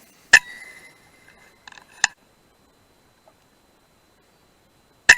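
Two shots from an FX Dreamline .177 PCP air rifle, each a sharp crack followed by a ringing tone that fades over a second or so. Two quieter clicks come about two seconds in.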